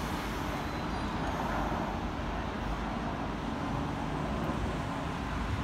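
Steady rumble of a Sydney Trains double-deck electric train drawing in along the track, blended with road traffic noise.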